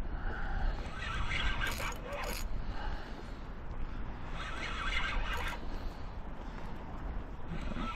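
Spinning reel being wound to bring in line, its gears rasping in two spells, over a steady low rumble of wind on the microphone.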